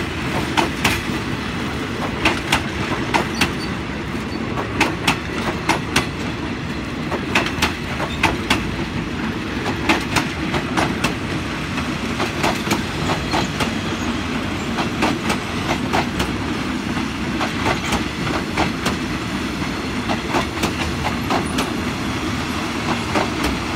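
Passenger coaches of a long train rolling past. Steel wheels click over the rail joints in quick clusters above a steady rumble.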